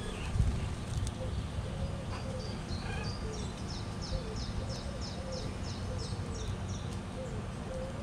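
A small songbird singing a run of quick, high, downslurred notes, about three a second, for some four seconds in the middle. Under it, steady low cooing of white-winged doves and a low rumble.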